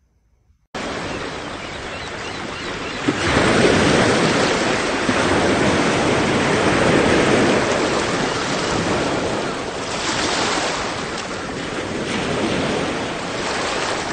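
Surf washing up a sandy beach: a loud, steady rush of waves that cuts in abruptly near the start and swells louder about three seconds in.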